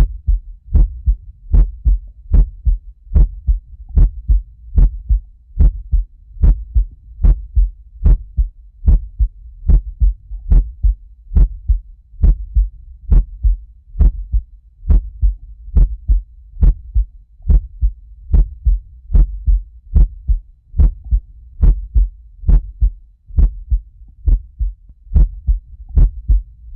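Heartbeat sound effect: a steady, deep lub-dub double thump, repeating a little faster than once a second.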